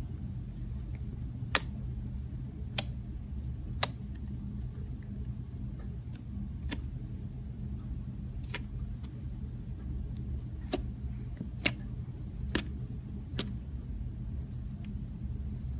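Slime being handled: about nine sharp, irregularly spaced clicking pops, the loudest about a second and a half in, over a steady low hum.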